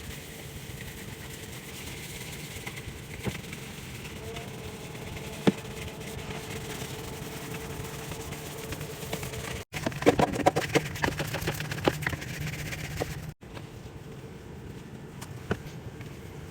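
Fridge being cleaned out: scattered knocks over a low steady hum, then about three seconds of rapid scrubbing and clattering. The sound drops out suddenly twice.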